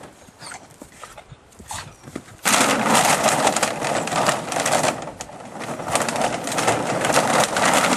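Empty plastic bottles clattering and crackling as a spaniel plunges into a pit full of them and searches through them. The rattling starts suddenly about two and a half seconds in and carries on dense and loud.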